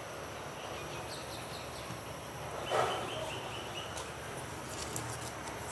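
Low steady background hiss with a short animal call about three seconds in, one of them carrying a held high note.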